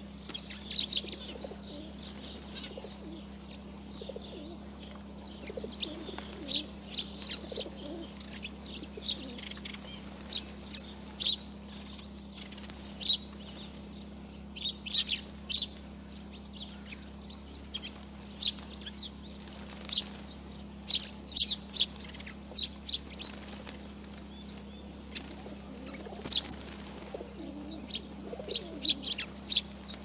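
A flock of sparrows chirping in short, sharp, scattered notes, with the wingbeats and occasional low coos of a feral pigeon flapping at a bird feeder, over a steady low background hum.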